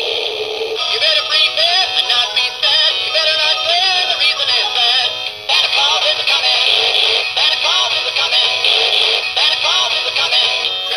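Animated Santa-on-motorcycle Christmas toy playing its built-in song through its small speaker: a synthesised voice singing over music, thin and tinny with almost no bass, with a short break about halfway through.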